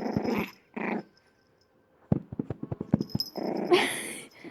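Pet dog growling in short bursts, with a few sharp taps between them, a warning at being teased.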